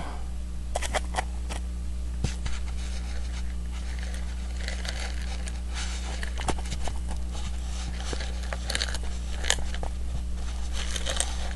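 A steady low electrical hum, with scattered small clicks and scrapes of handling noise as the taped mirror assembly is held up and moved.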